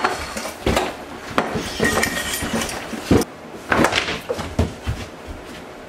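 Hard kitchen items clinking and knocking together in an irregular clatter as someone rummages along the counter, with one louder knock a little past the middle.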